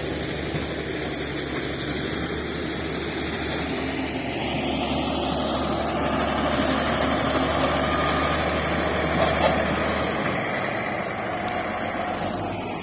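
Shantui bulldozer's diesel engine running steadily, with a high whine. About ten seconds in, the engine note changes: the low rumble drops away and the whine falls in pitch.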